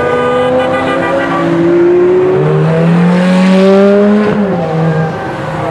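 Ferrari sports car engines accelerating past in a line, their pitch rising as they come on; the nearest car passes about four and a half seconds in, its engine note dropping sharply as it goes by.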